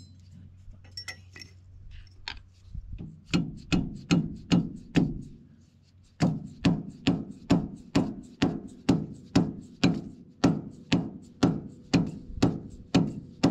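Hammer blows driving the gland (head) of a hydraulic swing cylinder into its barrel. A few light taps, then a short run of blows around the fourth second, a brief pause, and a long, even run of about two blows a second from about six seconds in.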